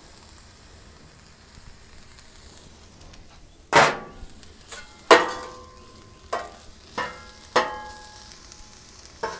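Salmon and vegetables sizzling softly on a Blackstone flat-top griddle. From about four seconds in come six sharp metallic clanks, each ringing briefly, as a steel spatula strikes the griddle's steel top.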